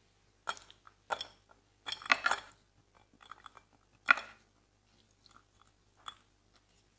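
Boiled potato chunks tipped from a saucepan into a stainless steel mesh strainer, landing in a series of short thuds, with the loudest about two seconds in and just after four seconds.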